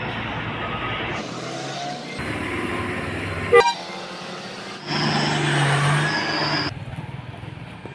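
Bus and truck engines running in short clips that cut abruptly every second or two, with a brief loud horn toot about three and a half seconds in.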